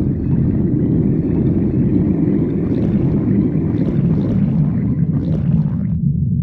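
A human stomach growling: a continuous low rumble, with a faint higher gurgling edge that falls away near the end.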